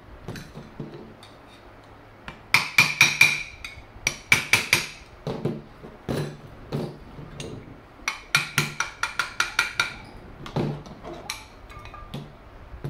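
Sharp, ringing metallic knocks on the Predator carburetor body as it is worked apart, in three bursts: about half a dozen a couple of seconds in, a few more in the middle, then a quick run of about ten.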